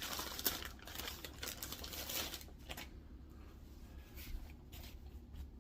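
Packaging rustling and crinkling as a parcel is opened and its contents handled, with scattered small clicks. It is busier for the first two or three seconds, then fainter.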